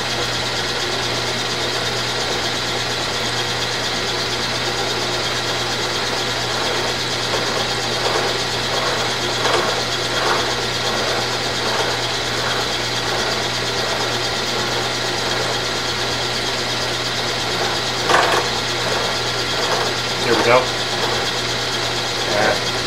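Milling machine running steadily with its disc cutter spinning in the spindle, taking a cut into a metal shaft. Irregular scraping, crackling bursts come as the cutter bites, a few around the middle and more near the end.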